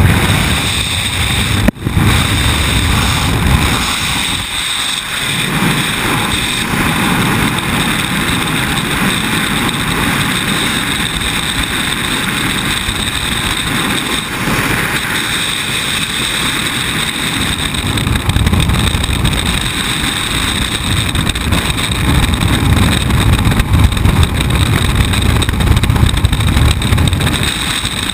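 Loud, steady wind roar buffeting a helmet-mounted camera's microphone during a skydiving freefall, starting from the aircraft's open door at exit, with a brief sharp break about two seconds in.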